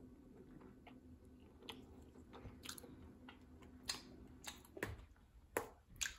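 Faint chewing of a grilled custard-filled taiyaki, with a handful of sharper clicks in the second half.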